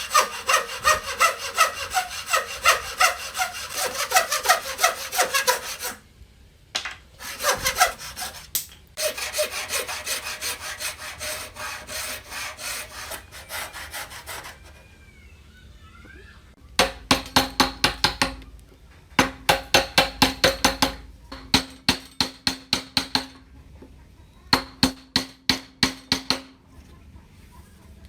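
A hand saw cutting wood in fast, even back-and-forth strokes, in two spells. Later, runs of quick, sharp, evenly spaced hammer strikes with a ringing tone, about four a second, with a short pause between runs.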